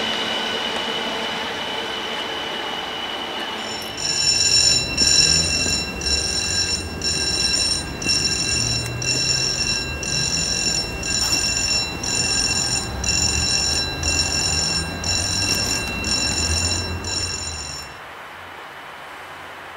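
An electronic warning alarm sounding in short, even pulses about once a second, over a low rumble; both stop abruptly near the end. Before the alarm starts, a diesel locomotive's engine tone fades away.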